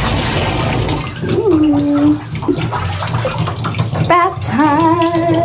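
Water running from the tap into a bathtub as it fills, a steady rushing, with a woman singing 'bath time' in a drawn-out sing-song tone near the end.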